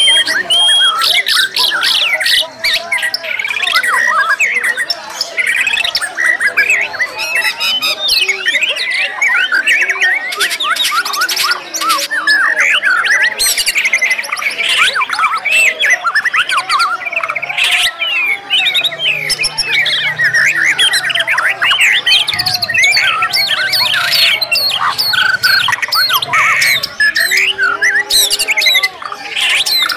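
Several white-rumped shamas singing over one another, a dense, unbroken stream of rapid whistled phrases, trills and harsh squawking notes. It includes the fast-fired 'nembak' runs and mimicked calls that contest shamas are trained to use.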